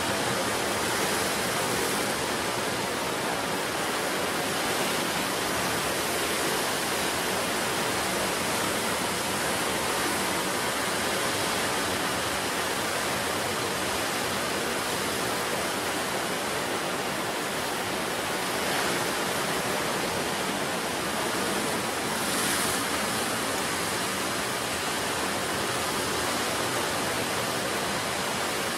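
Ocean surf washing continuously in a steady, even roar of noise, swelling slightly a couple of times in the second half.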